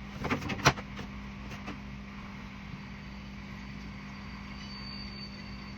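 A few quick knocks and taps in the first second as a slab of pork ribs is handled and flipped over, then a steady low hum.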